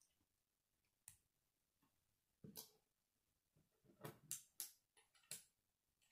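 Small plastic Lego pieces being handled and set on a wooden table: faint scattered clicks and taps, with a louder clatter about two and a half seconds in and a quick run of several clicks near the end.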